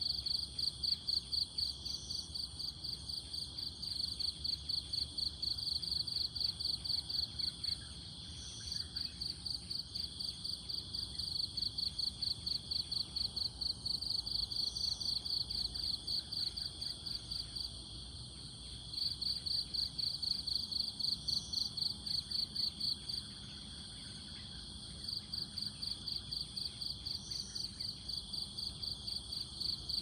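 Insects chirping in fast, even pulses, in trains several seconds long with short pauses, over a steady high-pitched hum. A short high note repeats about every six seconds.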